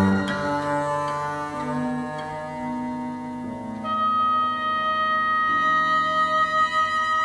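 Recorded contemporary chamber music, Gagaku instrumental sounds reworked on Western instruments: long, overlapping held notes, with a high sustained note coming in about four seconds in as the music grows louder.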